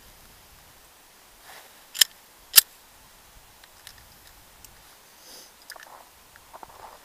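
Two sharp metallic clicks about half a second apart as a Colt 1903 Pocket Hammerless .32 pistol is handled and readied to fire, followed by a few fainter clicks and soft handling noise.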